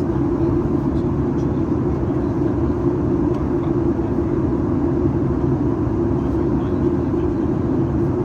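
Steady in-flight cabin noise of a Boeing 737 MAX 8-200: an even rush of airflow with a low hum from its CFM LEAP-1B engines, heard inside the cabin from a forward window seat.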